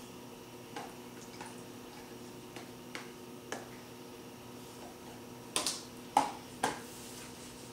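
Soft scattered clicks and taps as Kalamata olives are dropped by hand onto chicken in a glass baking dish, with three louder taps between about five and a half and seven seconds in. A faint steady hum runs underneath.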